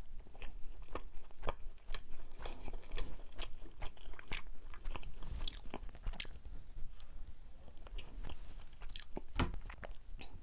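Close-miked chewing and biting of a soft mugwort rice cake shaped like a loofah, many irregular wet clicks and smacks of the mouth.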